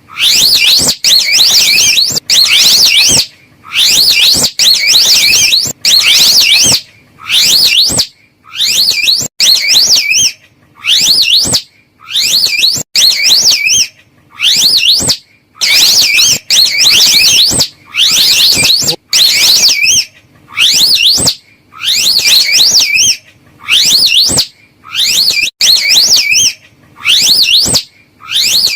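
High, rapidly wavering trills, given as the call of a slow loris, repeated in short bouts about once a second with brief gaps between them: a looped bird-and-animal lure recording.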